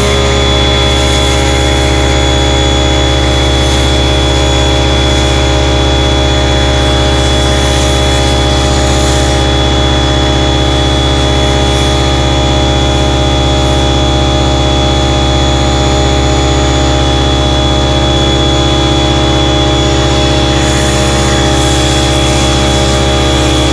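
Giraffe Tools Grandfalls electric pressure washer running steadily under load, its motor and pump humming without a break while it feeds a foam cannon, with the hiss of the foam spray.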